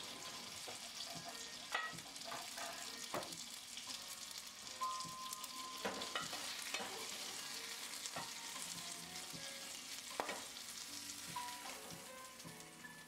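White fish steak sizzling in hot oil in a frying pan, a steady hiss with scattered sharp clicks as a spatula scrapes the pan and slides under the fish to lift it out. The sizzle eases a little near the end.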